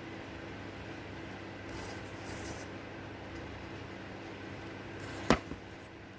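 Paper being handled and pressed down while a glued paper cutout is pasted on, over a steady hum, with one sharp click about five seconds in.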